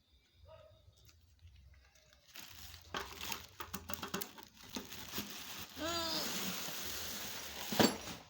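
Packaging crinkling and rustling as a new water pump is unboxed, starting about two seconds in and thick with small clicks. A brief pitched call sounds midway, and a sharp knock comes near the end.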